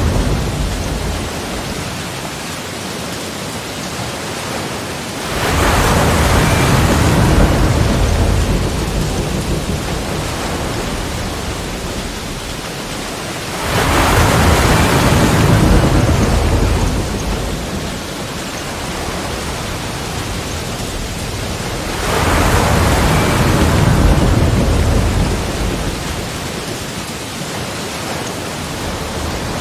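Ocean waves breaking on the shore: three surges about eight seconds apart, each rising quickly and fading into a steady wash.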